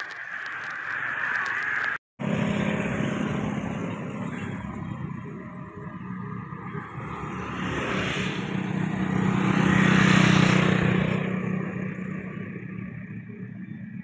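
Motorcycles passing close by one after another on a road, their engine noise swelling and fading, loudest about eight and ten seconds in. The sound drops out briefly about two seconds in.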